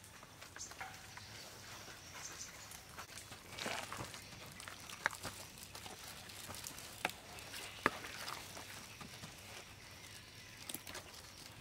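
Quiet handling of raw marinated chicken pieces being picked up and tossed in flour on metal trays, with a few sharp clicks.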